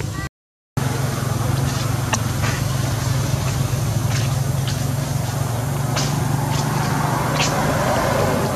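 Steady low hum of a running motor with a faint noisy background and scattered small clicks; the sound cuts out completely for about half a second near the start.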